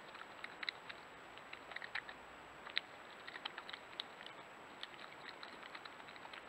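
European badger foraging with its snout in the gravel right beside the trail camera: irregular small clicks and crackles of feeding and rooting, over a faint steady hiss with a thin high whine.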